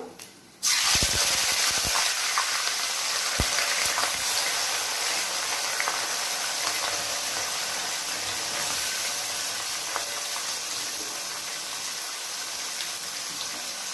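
Chopped onions tipped into hot oil in a kadai. They start sizzling loudly about half a second in and slowly settle to a steady fry, with a few knocks early on.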